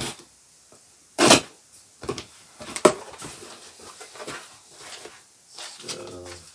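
Knife cutting the packing tape on a cardboard box and the box being pulled open: a string of sharp scraping and tearing strokes, the loudest about a second in, with rustling cardboard between them. A brief pitched sound comes near the end.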